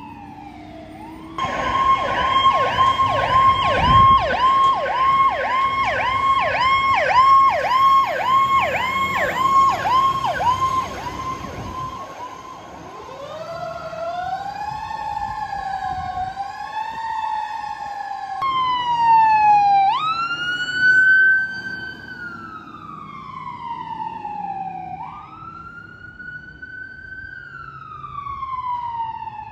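Emergency vehicle sirens from passing ambulances and a fire truck. A fast yelp at about two to three cycles a second gives way, after about 12 seconds, to slower rising-and-falling wails.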